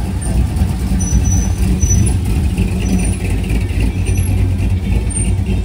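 Engine of a lowered 1960s Chevrolet C10 pickup running, a steady low rumble close by.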